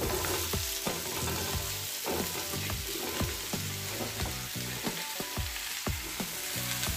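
Hot oil and spiced masala sizzling in an iron kadhai as chunks of ripe pumpkin are tipped in, with many short knocks as the pieces land and the wooden spatula pushes them into the pan.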